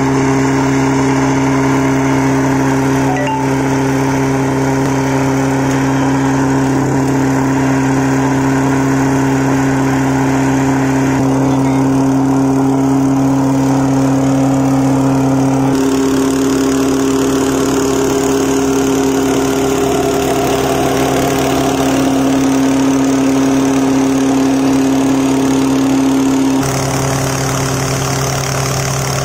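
Small portable engine of rail-welding gear running steadily at a constant speed, with a steady hum and a faint hiss above it.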